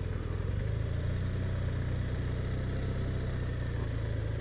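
BMW R1200RT's boxer-twin engine running steadily at low revs as the bike rolls slowly.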